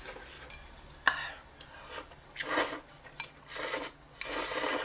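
A utensil clinks once against a pot of tripe hot pot, then scrapes through it in three short strokes.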